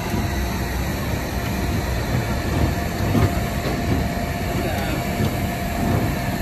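Steady airport apron machinery noise: a constant low rumble with a faint steady whine running through it.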